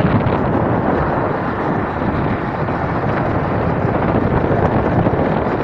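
A moving vehicle's running noise, with steady wind blowing over the microphone.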